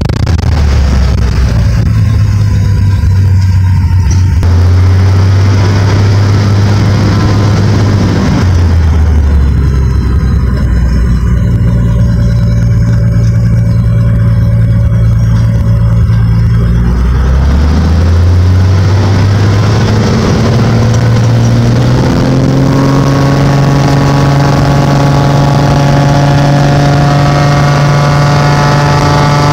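Cessna 185 amphibian's piston engine and propeller heard from inside the cockpit while taxiing, the engine note stepping up and down with the throttle. From about two-thirds of the way through the power rises smoothly and settles at a higher, steady note as the plane reaches the runway.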